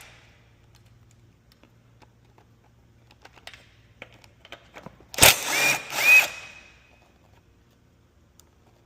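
Power drill spinning in two short bursts about five seconds in, the pitch rising as it spins up each time, with a few light clicks of tools before it.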